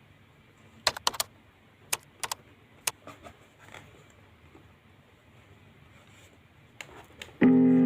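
A series of sharp clicks and taps, several close together in the first three seconds and a few fainter ones later, typical of the phone box and packaging being handled. Background music starts shortly before the end.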